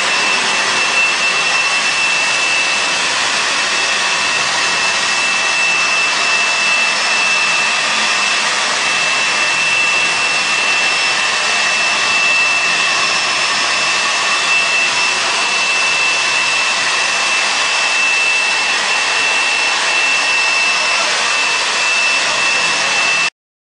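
Industrial rug-washing machine running: a steady rushing noise with a constant high whine. It cuts off suddenly near the end.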